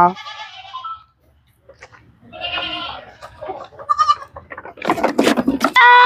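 Goat kid bleating twice: a faint wavering call at the start and a stronger one about two and a half seconds in. A short clatter of knocks and rustling follows near the end.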